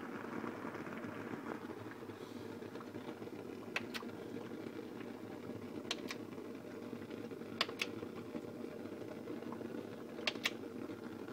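Steady running hum of a homemade gasoline-vapour burner rig feeding its flame. Four times through it comes a quick pair of sharp clicks.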